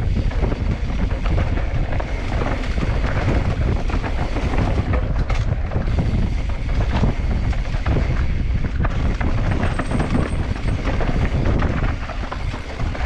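Mountain bike ridden fast down a dirt trail: tyres running over the dirt and the bike rattling and clicking over bumps, with wind buffeting the microphone.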